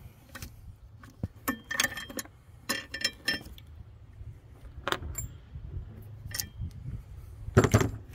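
Metal hand tools clinking and clicking: a socket wrench on an extension knocking against metal in short, irregular clusters, the loudest clatter near the end.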